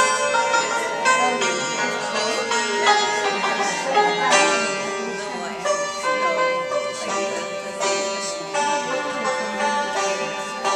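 Santur, the Persian hammered dulcimer, played solo with light mallets: a continuous run of quickly struck notes that ring on and overlap.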